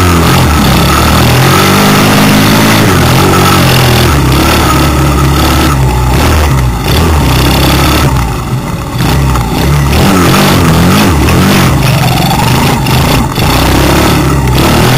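Small dirt bike engine ridden along a trail, its pitch rising and falling as the throttle opens and closes, with a short easing off about eight seconds in. Wind and engine noise roar on the bike-mounted microphone.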